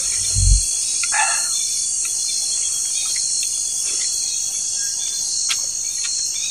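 A steady chorus of forest insects, high-pitched with a slight pulsing. There is one low thump about half a second in and a few faint clicks later.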